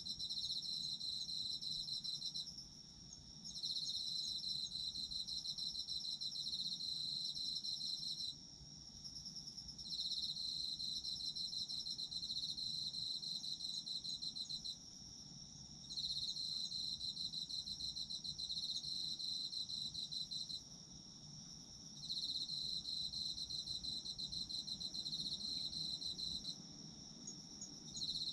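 Autumn crickets singing: one high pulsing trill comes in bouts of about five seconds with short pauses between, repeating regularly, over a steadier high trill from other insects and faint ticks.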